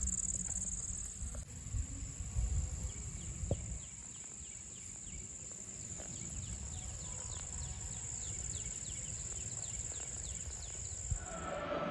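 Insects calling: a steady high-pitched drone, with a fast run of faint repeated chirps over it through the middle. A low rumble sits under it over the first few seconds.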